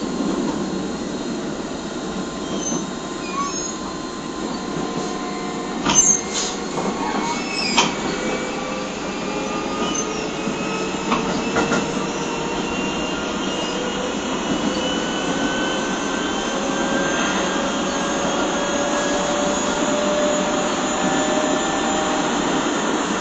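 Keio 7000 series field-chopper-controlled motor car running, heard from inside the car: the whine of its traction motors and gears rises slowly in pitch as the train gathers speed, over a steady rumble. A couple of sharp knocks come about six and eight seconds in.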